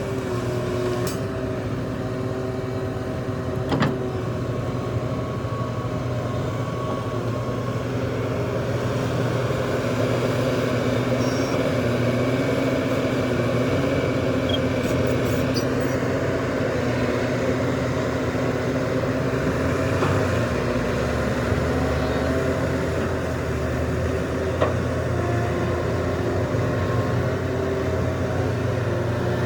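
Heavy diesel engines of a large excavator and dump trucks running steadily under working load, the engine note shifting a little in pitch. A sharp knock comes about four seconds in and a smaller one late on.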